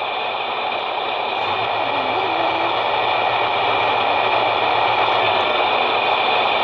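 Radio-controlled 1/14-scale Hino dump truck driving, a steady running whine and rumble that grows louder as it comes close.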